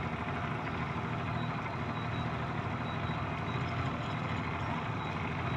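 Motorboat engine running steadily while the boat is underway, a constant even drone with no change in speed.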